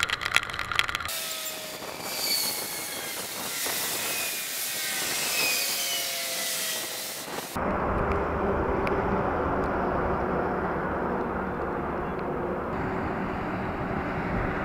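Wind and rain noise on a motorcycle rider's camera riding through heavy rain, with a few gliding tones from traffic. About seven and a half seconds in it cuts abruptly to a steadier, lower wind rumble with a faint hum.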